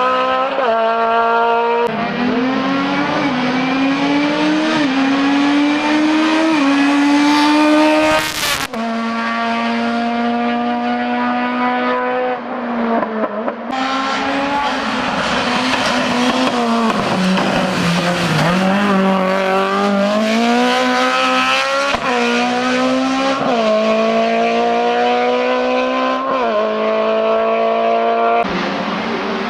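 Hillclimb race car engines at hard throttle, pitch climbing through each gear and dropping at quick upshifts, then falling under braking and downshifts. The sound breaks off abruptly about eight seconds in, again at about fourteen seconds, and near the end as another car takes over.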